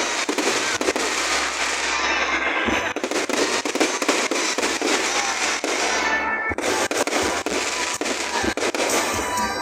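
Fireworks going off in a rapid, continuous barrage of sharp cracks and pops.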